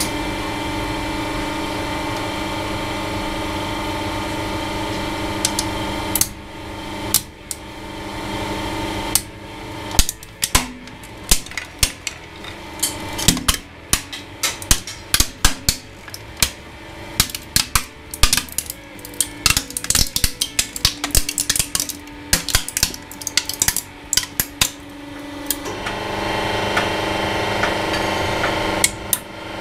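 Hydraulic press running with a steady hum. About six seconds in, a hollow plastic action figure starts cracking and snapping under the ram, dozens of sharp cracks for about twenty seconds as it is crushed. Near the end the cracking stops and only the press's hum is left.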